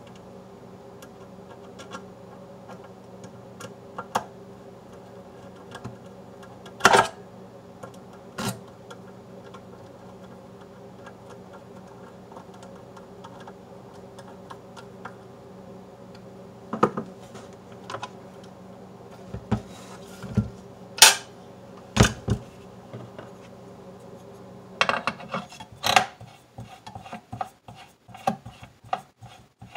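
Scattered clicks and knocks from hands handling the plastic and metal housing of a Super Technicolor 580 projector over a steady low hum. Near the end comes a quick run of clicks as the front knob is turned.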